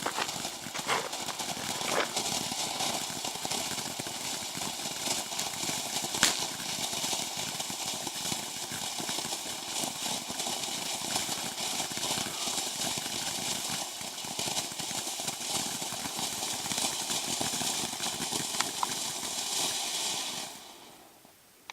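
Green willow ground firework fountain spraying sparks with a steady hiss and a few sharper pops. It burns out suddenly near the end.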